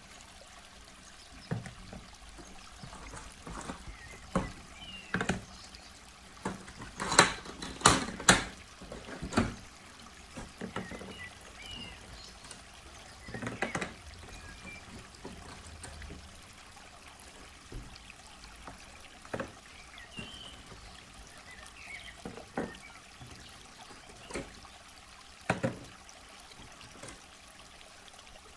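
Hard plastic toy animal figures set down one at a time into an empty plastic bin, each landing as a short clack on the plastic bottom, over a faint steady hiss. A quick run of louder knocks comes about seven to nine seconds in, with scattered single ones after.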